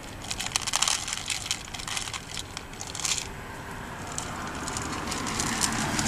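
Dry leaves and bark mulch crackling and crunching under cats' paws close to the microphone, in clusters of quick clicks, with a steady hum of road traffic underneath.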